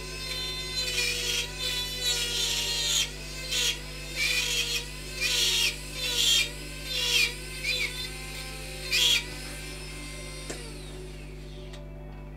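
Rotary carving tool with a tungsten carbide ball burr, running steadily and grinding wood in short repeated passes, roughly one burst a second, its pitch dipping with each pass. The grinding stops about nine seconds in, followed by a single click.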